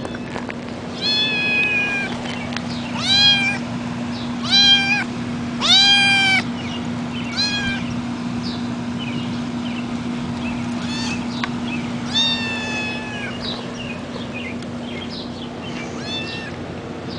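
Young orange tabby kitten meowing repeatedly: about eight high-pitched meows, the loudest and longest in the first half, each rising briefly and then holding.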